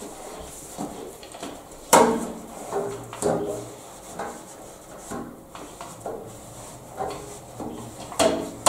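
Radiator roller worked side to side down behind a panel radiator, its handle knocking and scraping against the radiator, with a sharp knock about two seconds in and lighter clunks and rubs after it.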